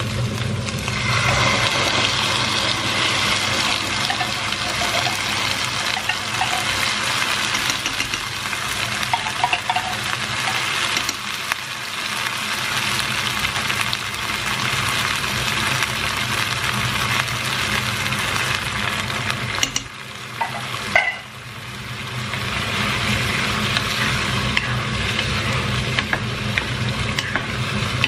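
Chicken pieces and onion sizzling in a hot nonstick pot as creamy chicken à la king sauce is poured over them and stirred in with a wooden spatula. The sizzle drops briefly about two-thirds of the way through, with a couple of clicks, then picks up again.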